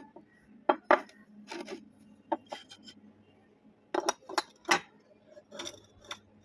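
Steel pieces clinking and knocking against each other in irregular strokes, each with a short metallic ring, over a faint steady hum.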